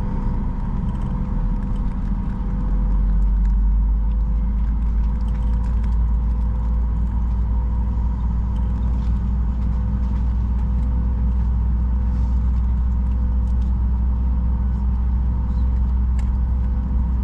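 Cabin noise of a Boeing 737 MAX 9 taxiing: a steady low rumble with an even engine hum from its CFM LEAP-1B engines. The rumble swells about three seconds in as the jet gets rolling.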